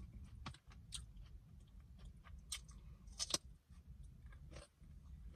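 A person chewing a mouthful of stuffed bell pepper and rice close to the microphone: soft wet mouth clicks and smacks, two of them sharper around the middle, over a faint low hum.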